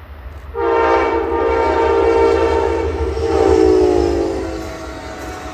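Nathan K5LA five-chime horn on an Amtrak train sounding one long blast that begins about half a second in, its chord dropping in pitch as the train passes and then fading, over the steady low rumble of the train.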